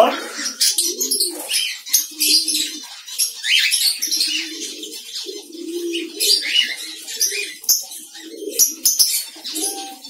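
Diamond doves cooing over and over, with brief wing flutters and small clicks among the calls as birds move in the cage.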